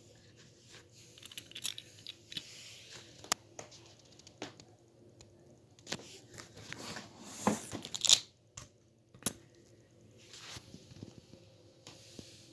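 Packaging being handled and torn: intermittent rustling, crinkling and tearing with scattered sharp clicks, busiest about seven to eight seconds in.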